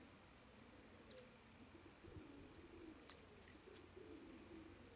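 Faint, soft, low murmuring calls from a chicken, repeated every second or so while it forages and pecks at food, with a few faint clicks.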